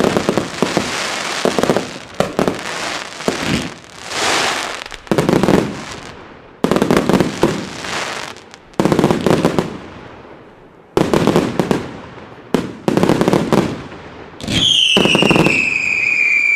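Fireworks firing in volleys: clusters of sharp shots with crackling, each tailing off into a hiss before the next. Near the end a loud whistle starts and slides slowly down in pitch.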